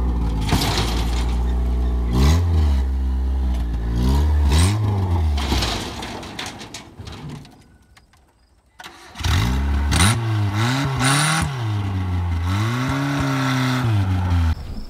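Small car engine revved in repeated rising and falling surges. It fades away to almost nothing about halfway, then comes back suddenly and revs again.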